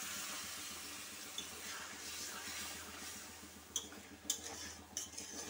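Water just added to a hot pan of frying masala with shrimp and pointed gourd, hissing steadily and fading over about three seconds, then a few sharp clicks near the end.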